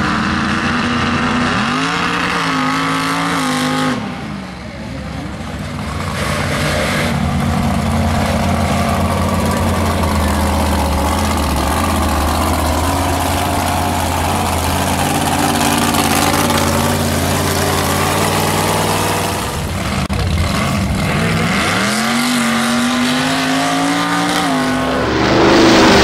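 Mega truck's engine revving up in the first few seconds, then running at steady low revs. It climbs in revs again near the end as the truck accelerates toward a jump.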